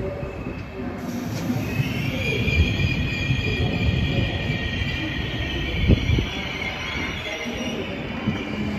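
Flixtrain passenger coaches rolling slowly past: a low rumble of wheels on rail, with a high steady squeal setting in about a second and a half in and fading near the end. A single knock comes about six seconds in.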